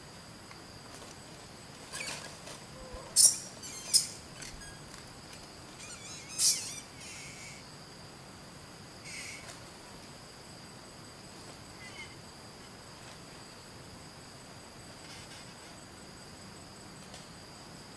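Steady high-pitched insect chorus, with a few short, sharp high sounds between about two and seven seconds in that are the loudest things heard.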